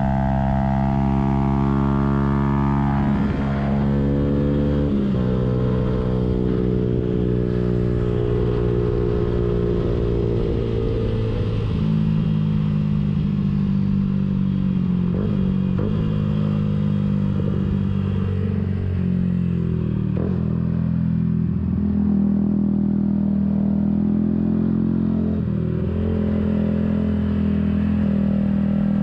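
Yamaha YZF-R125's 125 cc single-cylinder four-stroke engine under hard throttle through a full aftermarket exhaust system. The engine note holds high and steady, jumping to a new pitch several times as the rider shifts gears and changes throttle.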